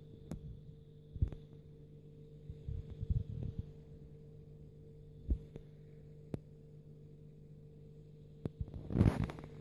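A steady low electrical hum, with a few short knocks and a louder bump near the end.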